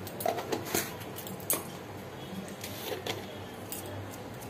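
A few faint, scattered clicks and taps of kitchen utensils and spice containers being handled while spice powders are added to a bowl.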